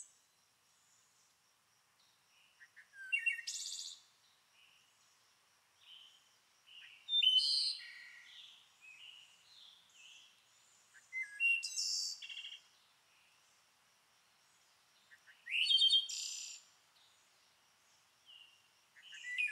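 A songbird singing short phrases, four of them about four seconds apart, with quieter chirps in between.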